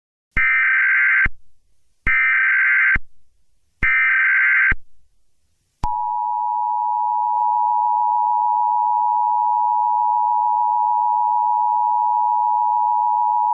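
Emergency Alert System header: three SAME data bursts, each just under a second long, a warbling digital tone. They are followed about six seconds in by the steady two-tone EAS attention signal (853 and 960 Hz).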